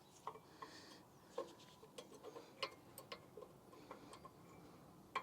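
Light, irregular metallic clicks and taps from brake pads and their hardware being handled and fitted into the caliper bracket.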